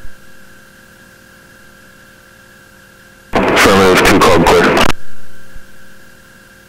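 Aircraft radio and intercom audio: a faint steady electrical hum, then about three seconds in a loud burst of garbled, static-laden radio transmission lasting about a second and a half before it fades out.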